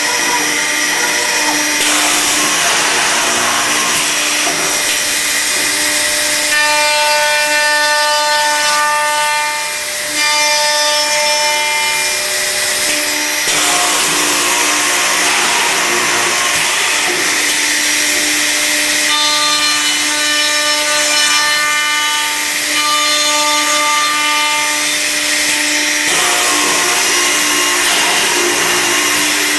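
Accu-Systems HVPP cup-hinge machine running and cutting into wood. The noise is loud and continuous over a steady hum, with two long spells of added whine, about a quarter of the way in and again past the middle.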